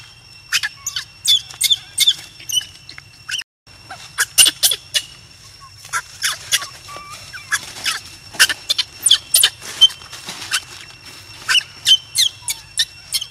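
A baby macaque crying in rapid, short, high-pitched squeaks, several a second. These are the distress cries of an abandoned infant, perhaps crying for want of milk.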